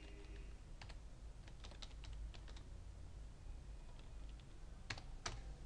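Typing on a computer keyboard: scattered, faint key clicks, with two sharper clicks about five seconds in.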